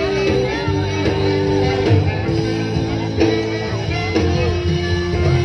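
Background music: held melody notes over a steady bass line.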